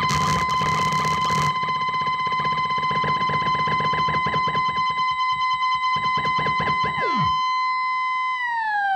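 Computer software-synth patch driven by the rePatcher Arduino shield's knobs: a steady, buzzy electronic tone with rapid pulsing and a hiss over the first second and a half. Near the end, swooping tones appear and the pitch glides steadily downward as a knob is turned.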